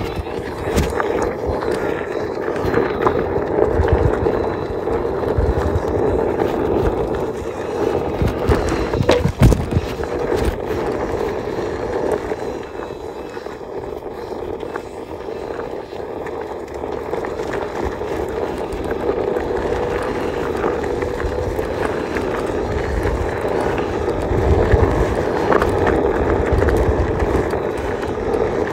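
Steady whirring hum of a Hover Air A1 Pro camera drone's propellers, over uneven low rumble, with a sharp knock about nine seconds in.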